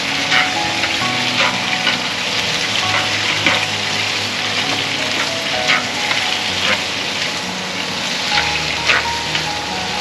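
Shrimp and pork stir-frying in a hot pan: a steady sizzle, with a short scrape or clink of the stirring utensil every second or so.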